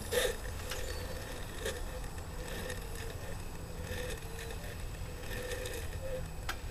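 Faint, thin playback of a vinyl record running backwards on a homemade acoustic phonograph: a heated record needle in a bottle cap with a cut-off plastic bottle as the horn. It gives a wavering, broken tone with scratchy clicks, the loudest just after the start, over a steady low rumble.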